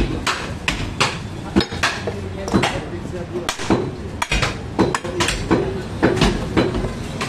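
Heavy butcher's cleavers chopping beef on thick wooden stump chopping blocks: sharp chops about three a second at an uneven pace.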